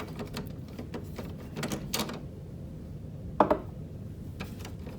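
Plastic clicks and knocks from a Canon PIXMA printer's ink cartridge holder being handled as its locking cover is squeezed and lifted open. There are a few scattered clicks, a small cluster around two seconds in, and the sharpest click a little after three seconds.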